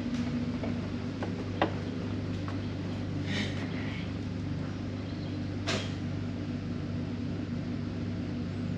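Steady low machine hum in a workshop room, with a few light clicks and taps as a digital camber gauge is set against a race car's front wheel. There is one sharper knock a little before six seconds in.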